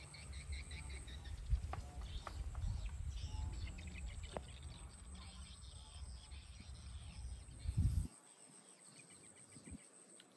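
Wind rumbling on the microphone over birds chirping and a steady high insect drone, with a few sharp snaps; the rumble cuts off suddenly about eight seconds in.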